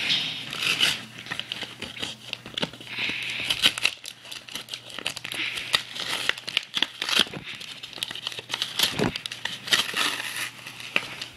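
Plastic blister packaging and its cardboard backing crinkling and tearing, an irregular run of crackles as a trading-card blister pack is pulled open by hand.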